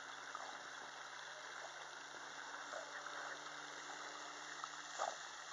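Faint, steady water sounds of a border collie paddling across a pond, under a low background hiss.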